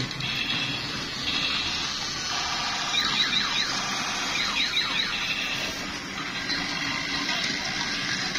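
Electronic sound effects from battery-operated transforming robot toys: a wailing, alarm-like run of beeping tones that changes pitch every half second or so, with two quick runs of falling zaps about three and four and a half seconds in.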